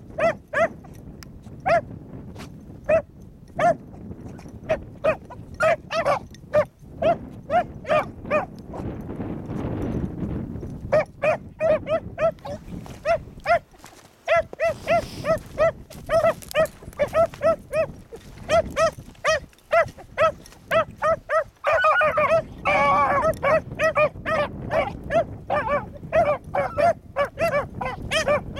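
Two beagle pups baying in a steady run of short, quick barks as they trail a rabbit's scent, both voices overlapping for a few seconds about three-quarters through. Wind rumbles on the microphone underneath.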